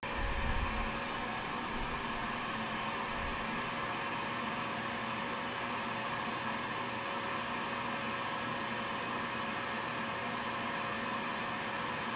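A cheap household vacuum cleaner running steadily, drawing air through the holes of a perforated MDF vacuum clamp bed to hold a board down: an even rush of air with a few faint steady whining tones. A low thud or two comes in the first few seconds.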